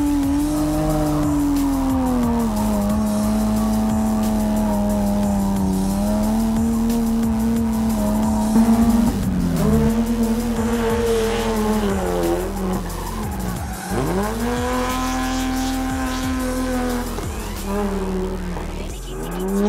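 BMW E30 drift car's engine held high in the revs with tyres squealing through a drift; the pitch sags and recovers several times, and about two-thirds of the way through it drops sharply and surges straight back up.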